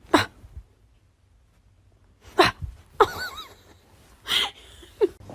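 Sneezing: about five short, sharp sneezes spread over the few seconds, with a brief high chirp about three seconds in.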